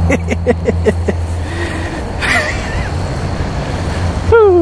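Golf cart driving along a paved cart path with a steady low motor hum. The hum cuts out about two seconds in and returns near the end. A quick run of about eight short sharp sounds comes in the first second, and a short falling pitched sound comes near the end.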